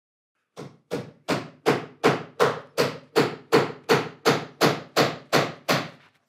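A hammer driving a wooden dowel peg through a drawbore hole in a cherry breadboard end, in a steady run of sharp knocks at about three blows a second.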